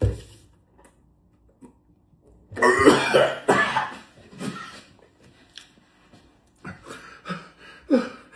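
Repeated coughing and throat clearing in several bouts, the loudest about three seconds in: the coughing of someone half choking on dry food eaten without water.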